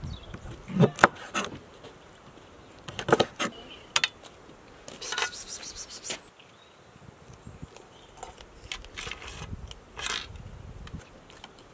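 Large kitchen knife chopping raw quail on a wooden cutting board: a few sharp knocks in the first four seconds, then a short scraping sound about five seconds in.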